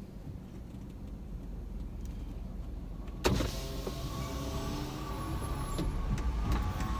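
Low steady rumble inside a car cabin. About a third of the way in, an electric power window starts going down with a motor whine, and outside traffic noise comes in.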